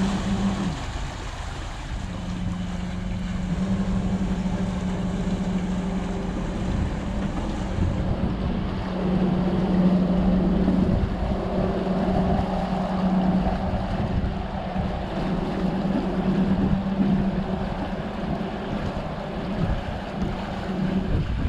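Motor hum of a Dragonfly 40 trimaran manoeuvring under power in harbour, a steady drone that drops out for about a second near the start and then runs on, with wind buffeting the microphone.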